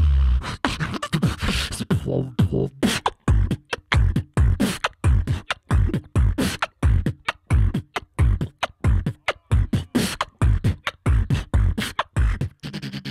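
Human beatboxing through a microphone and PA: a steady, fast beat of punchy kick drums with deep bass notes that slide down in pitch, interlaced with sharp snare and hi-hat clicks.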